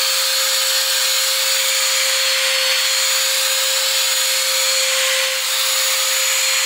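Cordless drill running steadily at low speed, spinning a foam polishing pad over a plastic headlight lens to buff it with polishing compound: a steady motor whine over the hiss of the pad rubbing.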